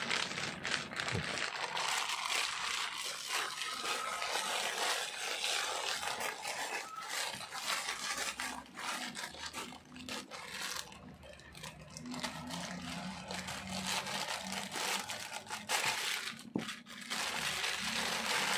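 Grey plastic poly mailer bag crinkling and rustling as it is handled, cut open with scissors and pulled apart.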